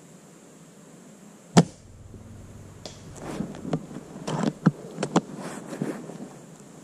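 A spring-powered airsoft sniper rifle (Classic Army SR-40 with an M160 spring) fires one shot, a single sharp crack about a second and a half in. It is followed by a run of softer clicks and knocks, the bolt being worked for the next shot.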